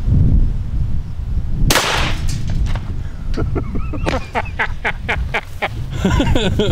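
A single shotgun shot about two seconds in, fired into two cans of shaving cream, followed by a run of short repeated voice-like pulses, typical of laughing. Wind rumbles on the microphone throughout.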